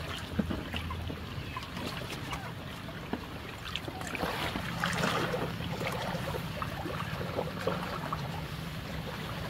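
Muddy flood water splashing and trickling, with scattered small knocks and drips. The splashing swells louder about halfway through.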